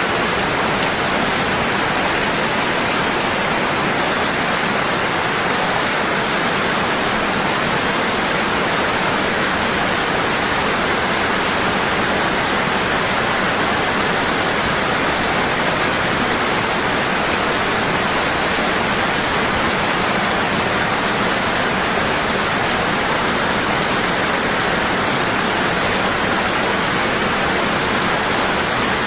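Waterfall: water falling strongly and constantly, a steady unbroken rush.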